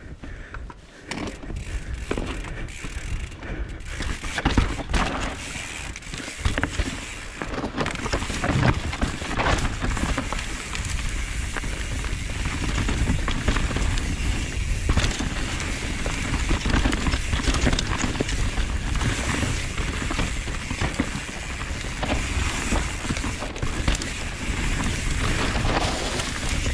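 Mountain bike riding down a rough dirt trail: constant wind rumble on the microphone with continual rattling and knocks from the tyres and frame over rocks and roots.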